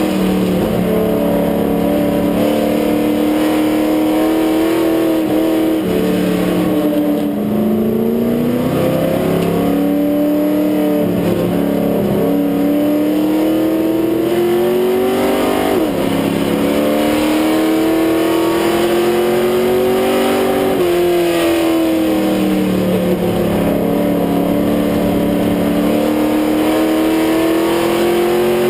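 Grand Stock race car's engine heard from inside the cockpit at racing speed. The revs climb and fall in pitch as the driver accelerates and lifts around the oval, dropping sharply about six seconds in and again about twenty-one seconds in.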